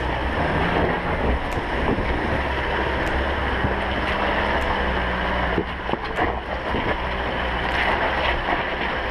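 Holden Colorado 4WD's engine pulling hard up a steep, loose, rocky climb, with wind buffeting the microphone.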